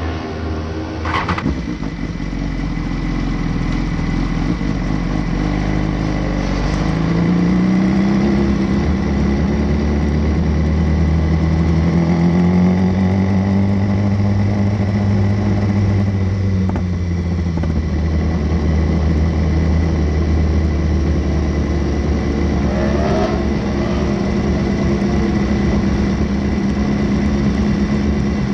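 BMW S1000RR inline-four sport-bike engine heard from an onboard camera, rising in pitch as the bike pulls away about seven seconds in, then running steadily at low revs with small swells of throttle.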